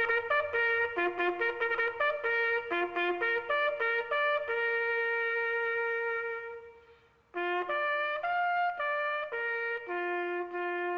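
Solo brass instrument playing a slow melody: a run of short notes, a long held note that fades away, a brief pause about seven seconds in, then more notes ending on another long held note.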